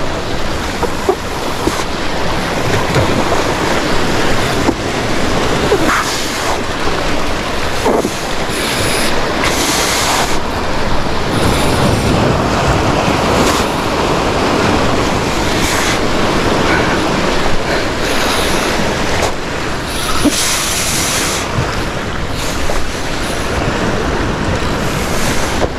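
Ocean surf breaking and washing against the shore, a steady loud rush with louder hissing surges about ten and twenty seconds in.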